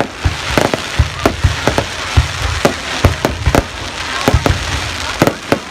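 Fireworks going off in rapid, irregular bangs, about two or three a second, over a continuous hiss.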